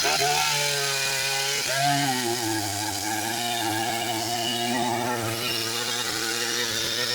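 Large Stihl two-stroke chainsaw running at high revs, cutting into a big tree trunk. Its steady engine note dips briefly about two seconds in as the chain takes the load, then holds.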